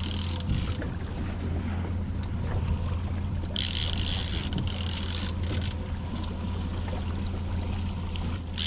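Boat engine running steadily at trolling speed, a continuous low drone, with a rush of hiss lasting about two seconds from three and a half seconds in.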